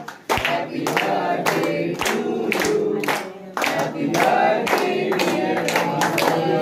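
A small group of men singing together while clapping in time, about two claps a second.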